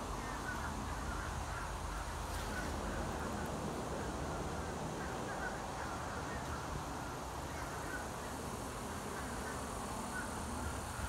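Outdoor ambience: a steady low rumble with many short bird calls scattered throughout.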